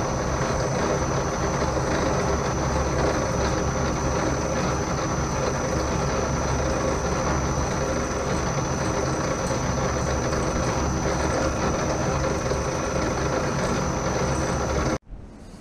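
Vertical milling machine running steadily, its spindle turning a drill bit to drill a metal block held in the vise: an even machine hum with a constant high whine, cutting off abruptly near the end.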